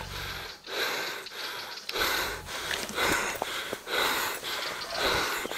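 A person breathing hard close to the microphone: quick, heavy breaths in and out, one after another, as after exertion.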